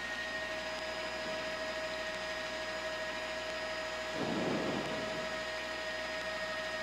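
Steady hiss with two steady tones on a two-way radio channel: an open carrier keyed with nobody talking. A brief muffled swell of noise comes about four seconds in.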